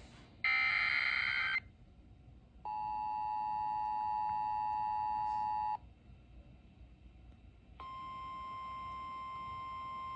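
Emergency Alert System tones. About half a second in comes a one-second burst of the SAME header's screeching digital data. After a pause the two-tone EAS attention signal sounds for about three seconds. After another pause, near the end, the single steady NOAA Weather Radio warning tone begins. Together they announce an incoming severe thunderstorm warning.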